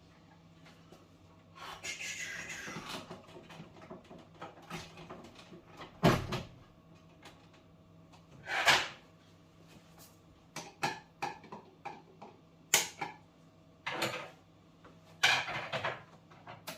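Irregular handling noises: a rustle, then about a dozen sharp knocks and clicks of hard objects being moved and set down, over a faint steady low hum.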